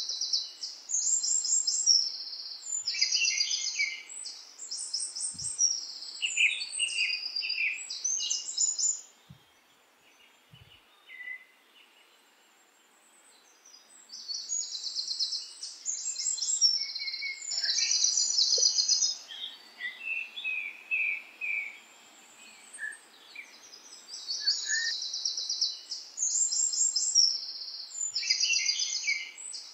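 Birds singing in fast, high-pitched trilled and chirping phrases, with a lull of a few seconds about a third of the way through.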